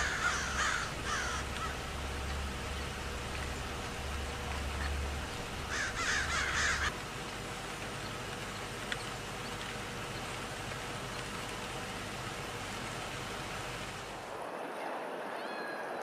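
Crow cawing: a few calls right at the start, then a quick run of caws about six seconds in, over a steady background hiss.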